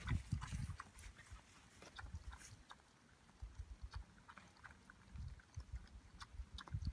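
A small dog gnawing on a stick among crinkly plastic sheeting: faint, scattered crackles and rustles with soft low thuds, loudest in the first second.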